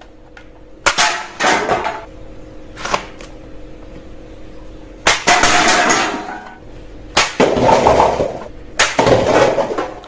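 A toy foam-dart blaster firing about five times, each shot a sharp pop, with aluminium drink cans clattering over and a stack of plastic cups tumbling down. The longest and loudest clatter comes in the second half, when the cup pyramid collapses.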